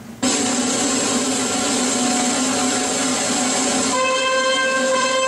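Loud recorded music cutting in suddenly over a sound system about a quarter-second in, played to accompany a drill routine. A dense, noisy opening gives way to sustained pitched notes about four seconds in.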